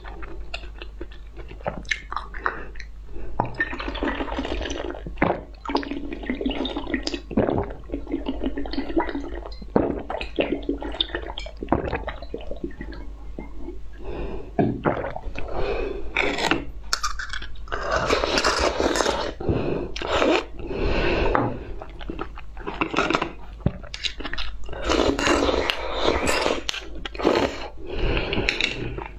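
Close-miked wet mouth sounds of drinking and swallowing a green jelly drink: sips, gulps and many small mouth clicks, coming thicker in the second half.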